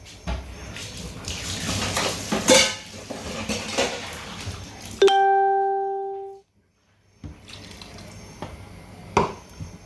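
Kitchen clatter of cookware and utensils as a pot is stirred and covered. About five seconds in comes a loud bell-like ding with a steady pitch, the loudest sound here, which fades for about a second and then cuts off into a moment of dead silence. Faint clatter and one sharp knock follow.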